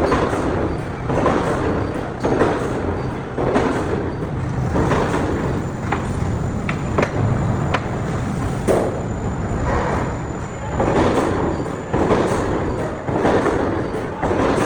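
Continuous heavy workshop machinery noise: a low rumble with irregular loud surges every second or two, a few sharp clicks near the middle, and a thin high whine for several seconds in the middle.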